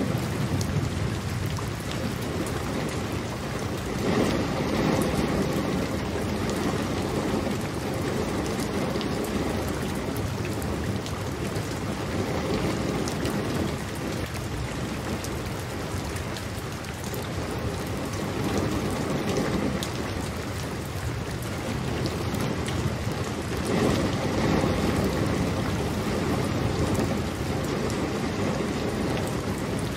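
Steady heavy rain falling, a dense even patter that swells a little louder a few times.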